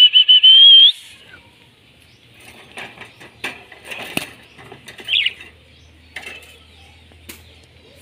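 A parrot gives one loud, drawn-out whistling call lasting about a second that rises slightly at its end. It then flaps its wings in its wire cage, making a flurry of rustles and light clicks, with a short chirp in the middle.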